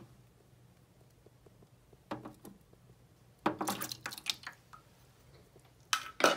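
Wet splashing and clicking in a shallow plastic tub, as loaches wriggle in a little water and metal tweezers move them about. It comes in three short bouts: one about two seconds in, a longer run of clicks a second later, and a loud one near the end.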